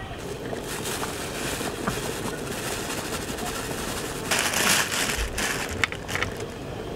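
Steady hiss of camping gas burners under a boiling pot, with a plastic bag crinkling about four seconds in as its contents are tipped into the pot of stew.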